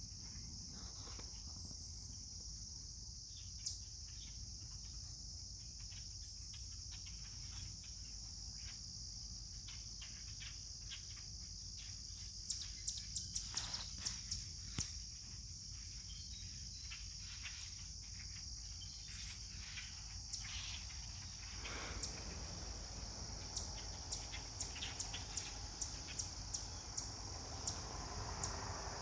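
A flock of common grackles giving short, sharp calls, scattered at first and coming thick and fast in the last few seconds. Under them runs a steady, high-pitched insect drone.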